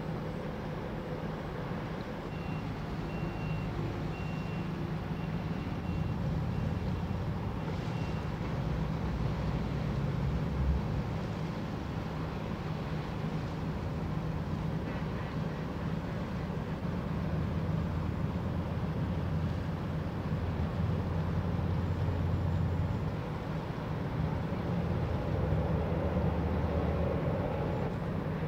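A large cargo ship's engine heard as it passes: a steady deep rumble and hum that swells and eases.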